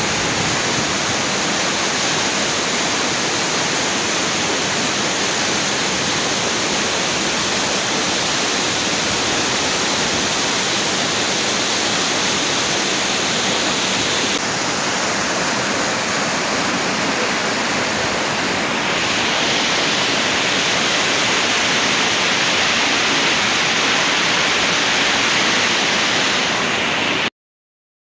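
Waterfall pouring over a rock face, a steady rushing of water. Its tone shifts twice, about halfway and about two-thirds through, and it cuts off suddenly near the end.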